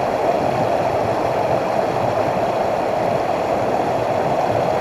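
Mountain stream water rushing and gurgling over rocks, a steady even rush.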